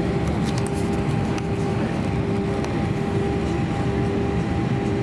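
Airbus A320-200 cabin noise during taxi: steady rumble of the jet engines at idle with a constant whine over it, plus a few faint ticks in the first second or so.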